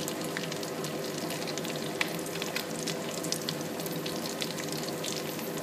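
Breaded potato balls deep-frying in a pot of hot oil: a steady sizzle full of small crackles and pops, with one slightly sharper pop about two seconds in.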